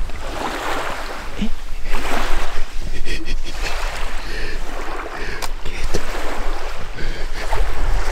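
Small waves lapping on a lakeshore, swelling and fading every second or two, with wind buffeting the microphone.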